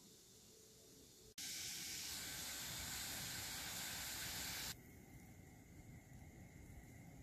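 Water at a rolling boil in a saucepan: a loud, even hiss that starts and stops abruptly and lasts about three seconds. After it comes a quieter hiss of the water still boiling with eggs poaching in it; before it, only a faint low hum.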